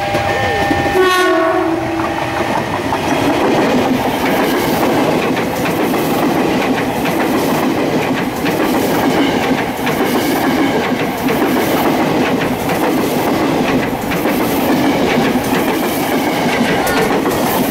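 Ex-Tokyo Metro 6000 series electric commuter train (set 6031F) sounds a short horn chord about a second in. It then passes close by, with a steady loud rolling rumble and wheels clicking rhythmically over the rail joints.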